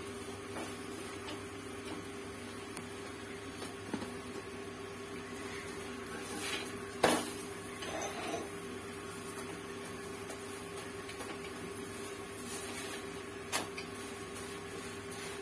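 Spatula and spoon knocking and scraping against a griddle as a paratha is cooked with ghee: a sharp clack about seven seconds in, the loudest sound, and another near the end, with a few lighter taps. A steady hum runs underneath.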